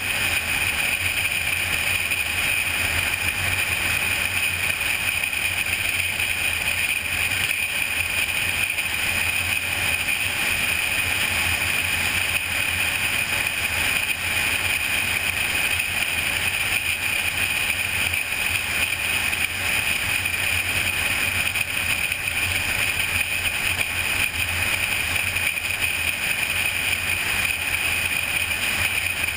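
Car cruising at highway speed: steady road and wind noise, an even rush with a low hum underneath.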